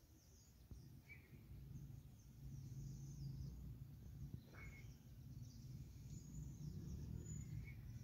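Faint outdoor ambience: small birds chirping high and on and off, with a few short, lower calls, over a steady low rumble.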